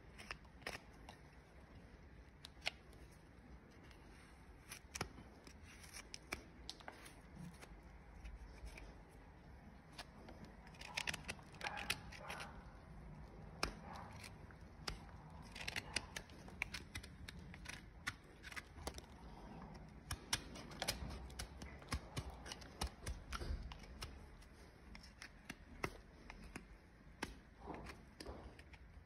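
Hoof knife paring the sole and frog of a horse's hoof, making irregular short slicing and scraping strokes with sharp clicks.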